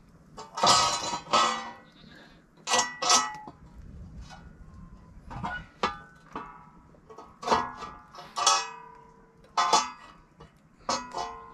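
A metal bread griddle clanks and scrapes against the stones of a wood-fire hearth as it is handled and set in place. There are about a dozen sharp metallic knocks at irregular intervals, several ringing briefly.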